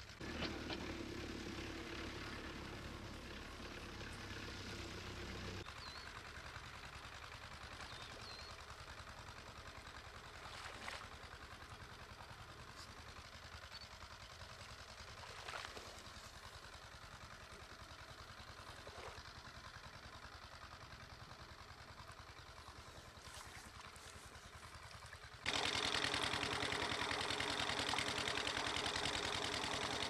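Outdoor field ambience with a low engine hum for about the first five seconds, then quieter. About 25 seconds in it jumps to the loud, steady rush of irrigation water pouring from a hose into a flooded furrow.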